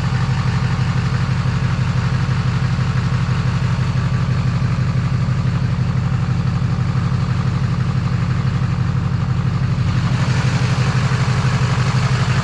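Chevrolet Silverado 2500HD's 6.6-litre Duramax turbo-diesel V8 idling steadily.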